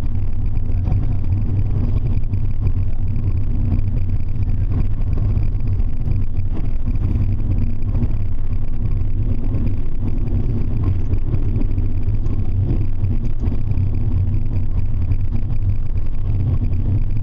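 Bus running on the road, heard from inside the cabin: a steady low engine and road rumble with a constant hum.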